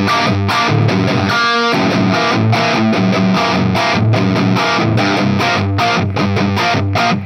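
Stratocaster-style electric guitar played through an overdriven drive preset with the reverb switched off, so the tone is completely dry: a run of quickly picked chords and riff notes.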